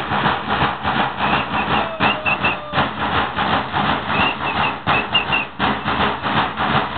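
Bear-dance drums beaten in a fast, steady rhythm, with short high whistle notes now and then over them.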